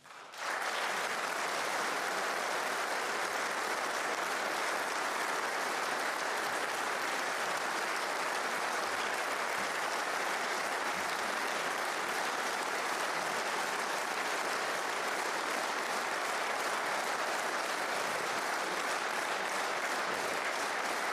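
A large audience applauding steadily. The clapping swells in sharply about half a second in, then holds at an even level.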